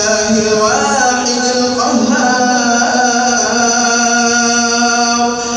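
A man's voice chanting Quran recitation in the melodic tajweed style. A few gliding ornaments give way, about two seconds in, to one long held note lasting several seconds.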